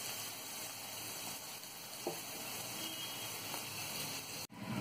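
Ridge gourd chutney sizzling softly in a hot nonstick pan, the oil separating from the cooked-down paste; the gas has just been turned off. The sizzle breaks off abruptly near the end.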